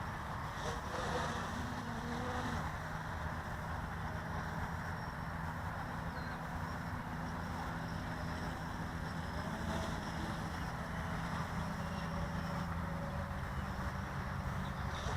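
Blade 350 QX quadcopter's electric motors and propellers running in flight: a steady buzzing drone with small shifts in pitch.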